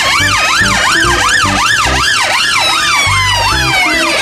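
Police vehicle sirens sounding together: a fast rising-and-falling yelp about three times a second over a slower wail that sweeps down and starts climbing again near the end.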